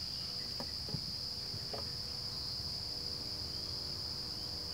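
Steady high-pitched chorus of insects in the woods, with a few faint clicks in the first two seconds.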